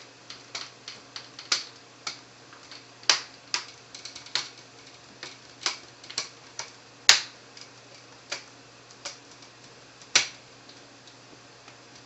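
Plastic display bezel of an HP Pavilion G62 laptop being pressed onto the screen lid, its clips clicking and snapping into place one after another. The clicks are irregular, with three louder snaps at about 3, 7 and 10 seconds in.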